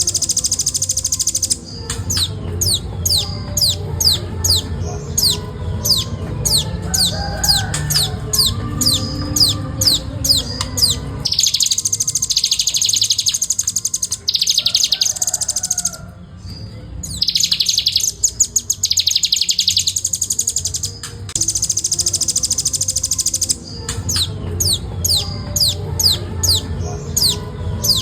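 Velvet-fronted nuthatch singing: a fast, tightly spaced series of high, downward-sliding notes, about three a second, broken near the middle by two dense rapid trills. A low background rumble runs beneath.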